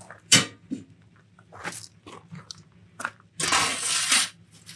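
Metal pizza peel scraping across the floor of a wood-fired oven as it is slid under a baked tart flambée, one loud rough scrape lasting under a second near the end. Before it, a few sharp knocks and clicks of the peel being handled.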